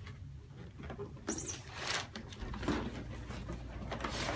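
Packaged cat food and toy boxes being handled and lifted out of a cardboard shipping box: rustling with a few light knocks, and a short high chirp about a second in.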